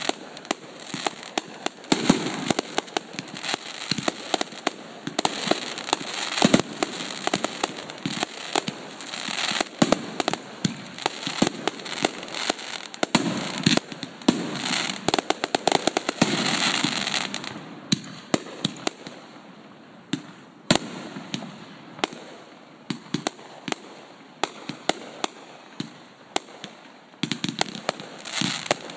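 Aerial fireworks going off: a rapid string of bangs and crackling bursts that thins to scattered separate bangs about two-thirds of the way through, then picks up again into a dense volley near the end.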